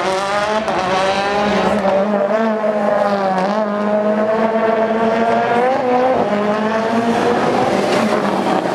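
World Rally Car's turbocharged four-cylinder engine revving hard, its pitch climbing and dropping back at each gearchange a few times.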